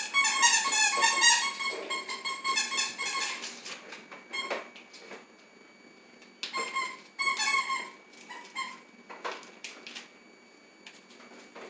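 Severe macaw making rapid high squeaky chattering calls in bursts: a long run at the start, another about two-thirds of the way in, and a short one at the end. A few brief newspaper rips and crinkles fall between them as it tears the paper with its beak.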